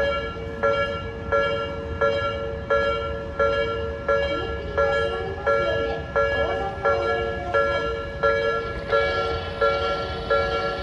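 Japanese railway level-crossing warning bell ringing in a steady, evenly repeated clang, about three strikes every two seconds, signalling that the crossing is closed for a train.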